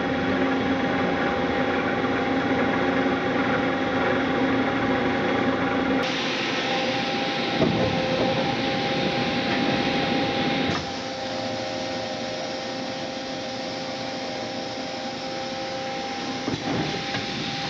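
Mazak H400 horizontal machining center running with a steady mechanical hum and a few held tones while its pallet is rotated. The sound changes character about six seconds in and drops in level about eleven seconds in.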